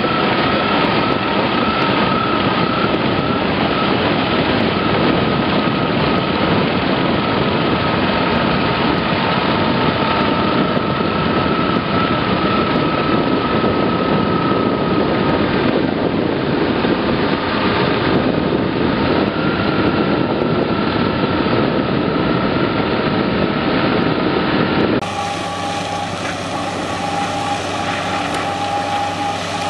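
A tractor-mounted ditch-cleaning rotor churning mud and water out of a drainage channel: dense machine noise with a steady high whine. About 25 seconds in it changes abruptly to a tractor working a ditch-bank mower, a steadier engine hum.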